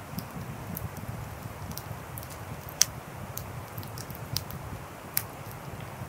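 Wood fire burning: a low steady rush of flames with scattered small crackles and three sharper pops, the loudest a little under three seconds in.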